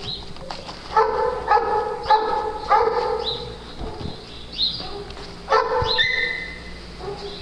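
A dog barking: four barks in quick succession from about a second in, then one more a few seconds later.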